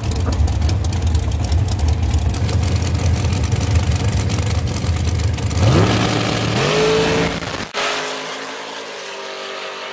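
Dragster engine running loud and rough on the start line with a rapid crackle. About six seconds in it launches: the pitch climbs steeply, dips once at a gear change and climbs again. It then drops suddenly to a fainter, steadier engine sound as the car runs away down the track.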